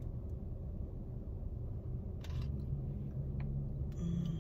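Steady low rumble inside a parked car, with a short crisp sound about two seconds in as a McRib sandwich is bitten into, then chewing and a brief hummed 'mm' near the end.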